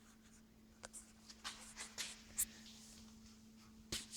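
Faint rustling and scraping with a few light clicks from a person getting down to the floor, over a steady faint hum.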